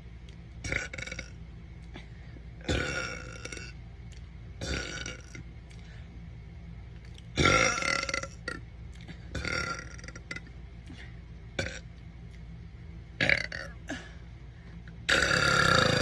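A woman burping over and over, about eight burps with short pauses between them, several drawn out for about a second. The loudest come about halfway through and at the very end.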